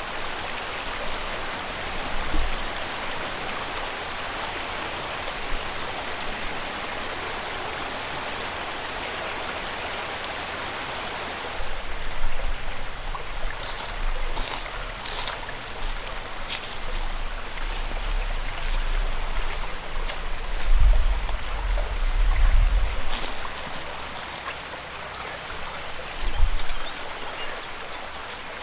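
River water flowing steadily, with a constant high-pitched whine over it and occasional low bumps and rumbles in the second half.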